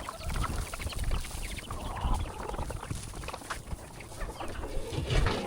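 Chickens and roosters clucking and calling, many short calls overlapping, with scattered low thuds.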